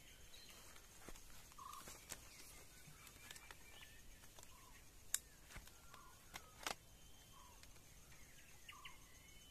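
Faint outdoor quiet with birds calling at a distance, short notes repeating every second or two. A few sharp clicks stand out, the loudest about five seconds in and another near seven seconds.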